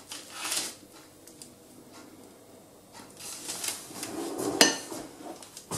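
Kitchen handling sounds as goat cheese is turned in beaten egg in a glass bowl: soft rustles, then a sharp glass clink with a brief ring about four and a half seconds in, the loudest sound.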